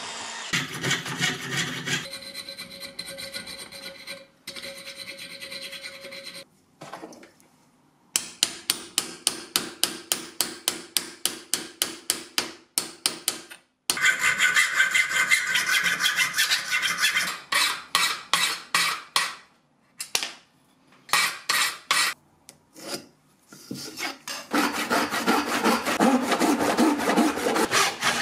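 Hand tools working brass and maple: a small bit drilling a brass plate, then quick, even back-and-forth strokes of a fine saw or file cutting a brass plate held in a vise, about three or four strokes a second. Near the end a handsaw cuts through a maple block, stroke after stroke.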